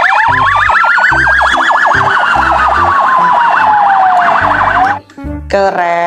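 Police car siren: a rapid warbling yelp layered over a slower wail that rises and then falls, cutting off about five seconds in. Background music with a steady beat runs underneath.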